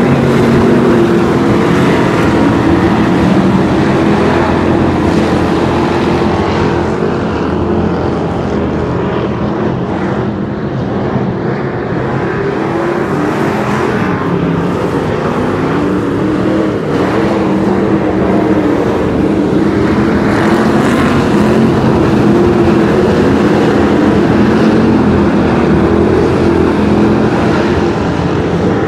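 Engines of a pack of hobby stock race cars running hard around a dirt oval, loud throughout, their pitch wavering as the cars circle; slightly quieter for a moment around ten seconds in.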